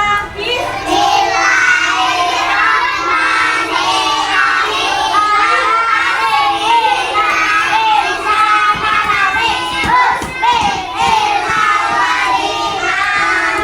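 A group of young children singing and shouting together, many voices at once, with a few sharp knocks about nine to eleven seconds in.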